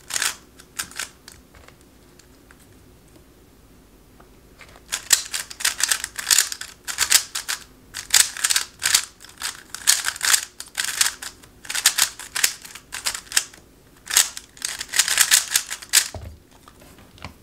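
Moyu RS3 M MagLev magnetic 3x3 speedcube turned fast through a solve: dense runs of plastic clicking and clacking, the layers snapping into place on their magnets. The cube is new and, out of the box, very fast and super sandy. The turning starts about five seconds in after a quiet pause and stops with a soft thump near the end.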